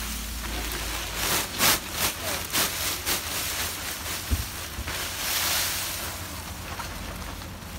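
Dried Indian bay leaves (tejpatta) pouring out of a woven plastic sack onto a plastic sheet, rustling and crackling, with the sack crinkling. A run of crackly bursts in the first few seconds, a soft thud about four seconds in, then a longer hiss of leaves sliding out.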